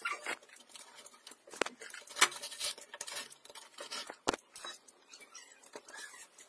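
Hands handling a toy helicopter built from thin drink-can metal: faint rustling and light rattles, with a few sharp clicks scattered through.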